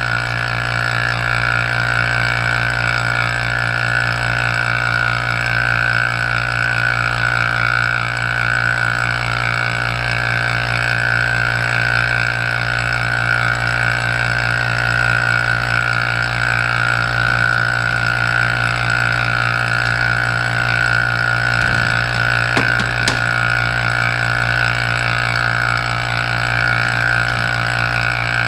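Electric vacuum pump of a Sonnax vacuum test machine running steadily with a low hum and a higher whine, drawing vacuum on a transmission valve body's circuits in a leak test. A few light taps come near the end.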